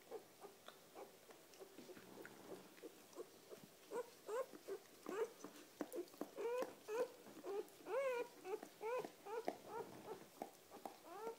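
Newborn puppy squeaking and crying in short, high calls that rise and fall in pitch, growing louder and more frequent from about four seconds in.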